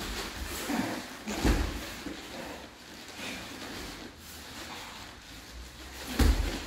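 Two grapplers in gis scuffling on foam mats: rustling cloth and shifting bodies with dull thumps, the loudest about a second and a half in and again near the end.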